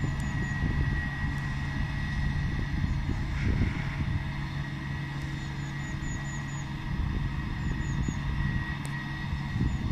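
Vervaet Hydro Trike self-propelled slurry injector working across grassland: a steady engine drone with a steady high whine over it.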